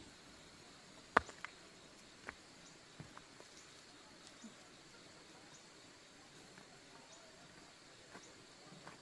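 Loose flat stones knocking and clicking as they are picked up and handled on stony ground. One sharp clack about a second in is the loudest, followed by a few softer, scattered knocks.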